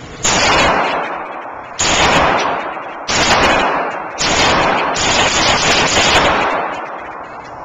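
Handgun shots fired in an indoor range: a slow string of about four shots, one every second and a half or so, each followed by a long echoing decay.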